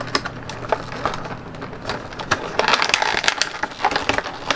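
Clear plastic packaging being handled, crinkling and crackling in an irregular run of small clicks that gets busier in the second half.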